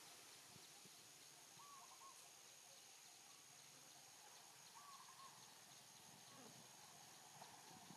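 Near silence: faint outdoor ambience with a steady high hiss, and a distant bird giving a short call about three times.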